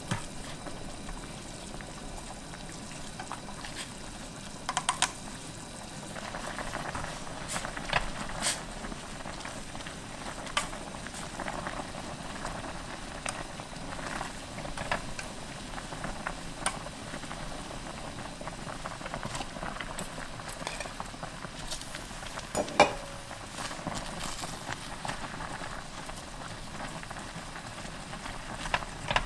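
Broth boiling steadily in a stainless steel saucepan, with scattered sharp taps and clicks of wooden chopsticks against the pot as instant ramen noodles are stirred in, one tap louder than the rest about three-quarters of the way through.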